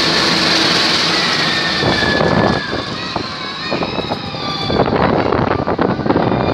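Passenger coaches of a train rolling past along the platform: a dense rumble and rush of steel wheels on rail that drops in loudness about two and a half seconds in. After the drop come clicks of wheels over rail joints and faint, thin high squeals.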